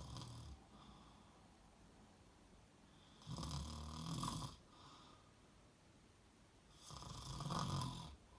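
A person snoring loudly and deeply: two long snores about three and a half seconds apart, the tail of an earlier one just at the start.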